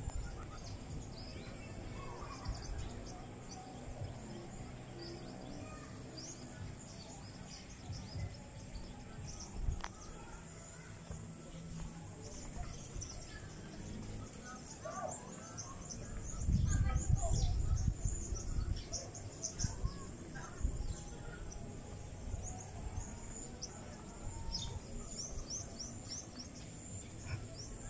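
Outdoor ambience of birds chirping on and off in short high calls. About two-thirds of the way through there is a low rumble on the microphone that lasts about two seconds.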